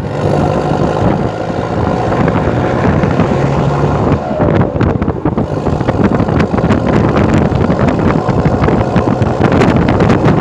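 Toyota Hilux Vigo 3.0 VN four-cylinder turbodiesel with its muffler removed, running steadily while driving, with a raw, unmuffled exhaust note and wind noise.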